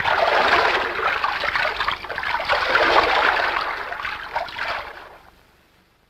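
Sea water splashing and washing as a steady rushing noise, fading away near the end.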